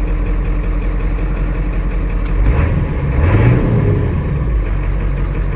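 Ford OBS pickup's engine idling steadily, with one brief rev about halfway through: the pitch rises and then falls back to idle.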